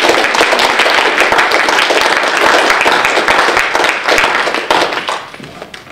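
Audience applauding, many hands clapping at once; the clapping dies away about five seconds in.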